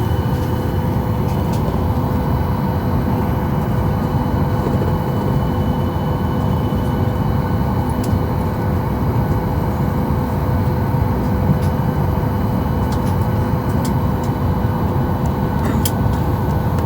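Steady airliner cabin noise with the engines running: a constant low rumble with a steady hum over it.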